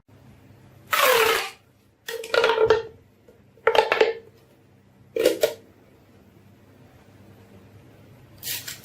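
Marbles clattering on a toy marble run track, in four short rattling runs about a second or so apart, then one more brief rattle near the end.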